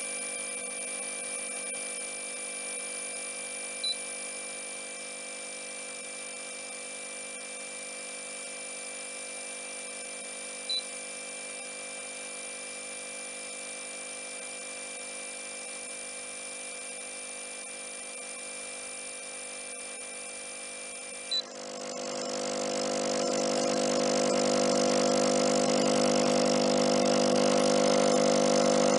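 Airthereal AH1000 ozone generator running: a steady hum from its air pump under a high-pitched whine from the ozone-making section, with a faint click about 4 and 11 seconds in. About 21 seconds in there is a click and the whine stops as the ozone generator shuts off, while the air pump keeps running and grows louder over the next few seconds.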